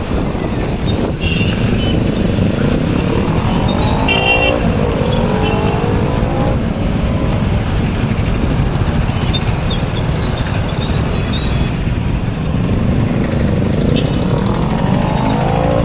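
Motor vehicle engine and road noise while travelling along a town road, the engine pitch rising and falling twice. A short high beep about four seconds in.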